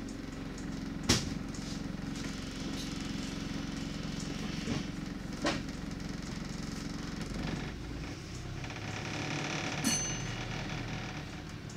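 Inside a bus on the move in slow traffic: a steady engine hum with a few sharp rattles and knocks from the vehicle, the loudest about a second in. The engine note shifts about eight seconds in.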